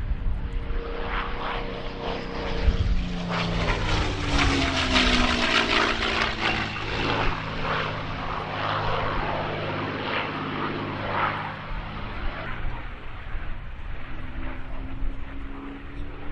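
Piston-engined propeller aircraft flying past low: the engine note swells, drops in pitch as it goes by about four seconds in, then fades away.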